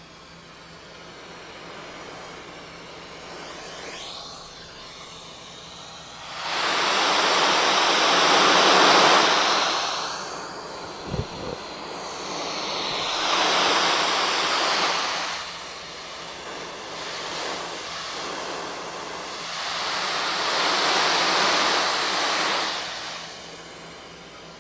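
Brown noise played from a phone's speaker and picked up by a FiFine K658 dynamic microphone in a noise-rejection test: a steady rushing hiss that swells up and fades back about four times. A short low thump comes about 11 seconds in.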